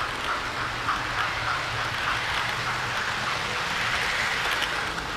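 Model railway train passing close by on the layout track: steady rattle of wheels on the rails with a regular clicking about three times a second over a low hum.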